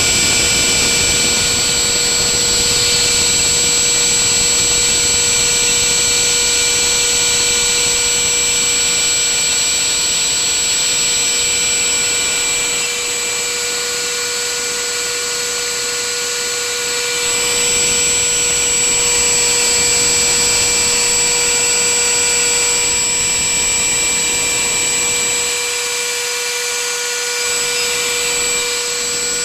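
Homemade CNC router's spindle running with a steady high whine of several pitches, its bit cutting into a softwood board. The rushing cutting noise under the whine thins out for a while around the middle and again near the end.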